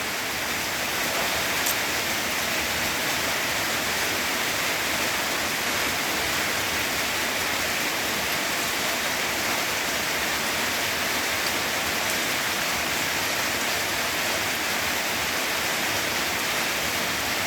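Steady rain falling, an even hiss of water that keeps up without a break.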